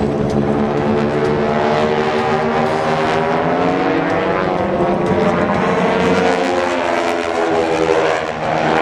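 Several North American T-6 Texan trainers flying in formation, their radial engines and propellers droning together. The engine note slides up in pitch and then back down as they pass.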